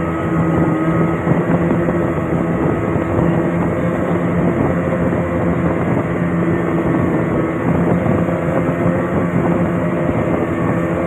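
An engine running steadily at a constant speed, an even hum with no change in pitch.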